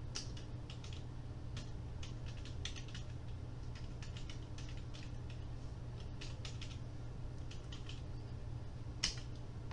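Typing on a computer keyboard: irregular runs of keystrokes, with one sharper keystroke near the end.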